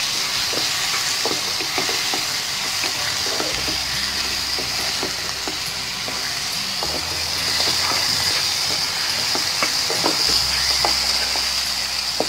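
Prawns sizzling in oil and masala paste in a frying pan while a spatula stirs and turns them. Many light scraping clicks are scattered through a steady hiss.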